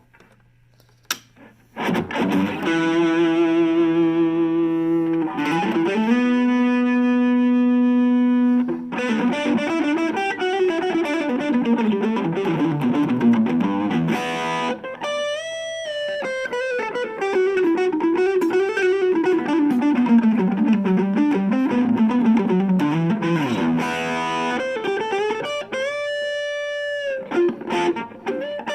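Harley Benton CST24-HB electric guitar played through a Blackstar Fly 3 mini amp with some overdrive. After a quiet start, two long held chords ring out, then come fast single-note lead runs rising and falling, with bent notes held with vibrato.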